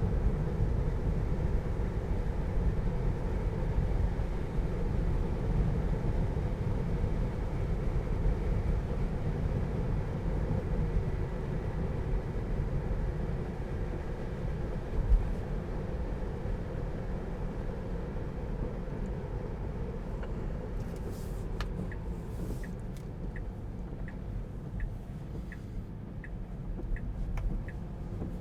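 Steady road and tyre noise inside the cabin of a 2020 Tesla Model 3 on a wet road, with no engine note, easing slightly over time. Near the end, a turn-signal indicator starts ticking evenly, about three ticks every two seconds.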